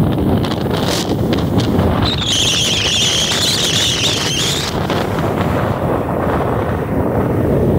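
Strong storm wind from the remnants of Hurricane Ian buffeting the microphone, with breaking surf underneath. A wavering high whistle sounds for about two and a half seconds, starting about two seconds in.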